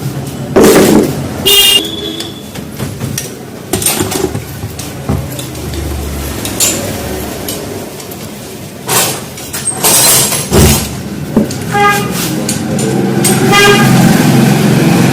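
Passing road traffic with vehicle horns honking, along with scattered metallic knocks and clanks. Several horn toots sound together near the end as the noise grows louder.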